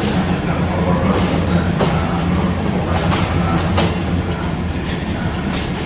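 Diesel passenger train rolling slowly out of a station, heard from on board: a steady low rumble with irregular sharp clacks as the wheels cross rail joints and points.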